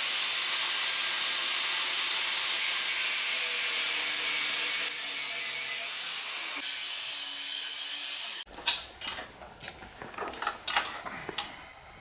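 High-speed power tool cutting down the steel mounting bolts of a motorcycle centre stand: a steady, hissing, high-pitched whine that drops a little in level about five seconds in and cuts off suddenly after about eight and a half seconds, followed by a few light metal clinks.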